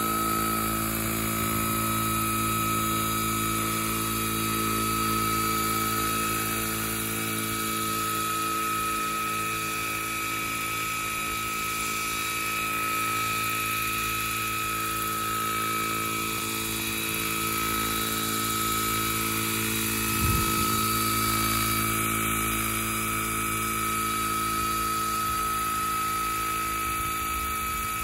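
Vario Chinook tandem-rotor radio-controlled model helicopter hovering, its rotors and drive running steadily with a high whine. One brief low thump comes about two-thirds of the way through.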